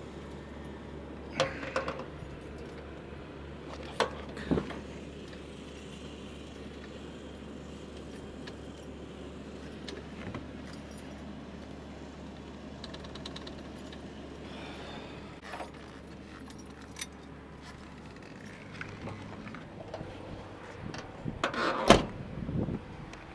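Car keys jangling with a few light knocks, then near the end a loud clatter of clunks as the key works the trunk lock of a 1973 Plymouth Road Runner and the latch releases.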